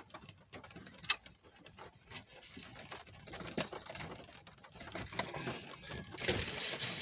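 Small clicks and taps of a foam cup and lid being handled inside a car, with one sharp snap about a second in. From about five seconds in there is louder, denser rustling as things are moved about on the back seat.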